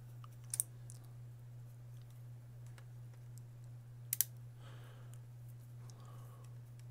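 A few sharp clicks of a small precision Torx screwdriver against the screws and plastic shell of a handheld remote controller: one about half a second in and two close together about four seconds in, over a steady low hum.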